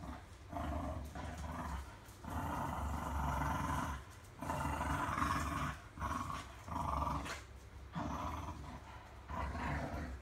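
English bulldog snoring in her sleep: a run of long, rough snores, each a second or two, with short pauses for breath between them.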